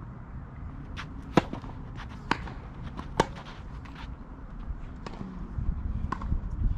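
Tennis ball being struck back and forth in a rally on a clay court: a string of sharp pops from racket strikes and ball bounces, the loudest about a second and a half in and about three seconds in.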